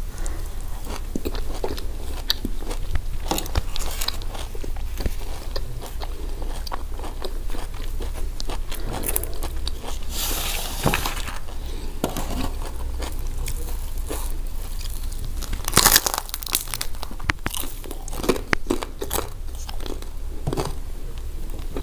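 Close-miked eating: bites and wet chewing of fresh tomato slices, then crisp crunches from hawawshi, Egyptian baladi bread baked with spiced minced meat inside. The loudest crunch comes about two-thirds of the way through.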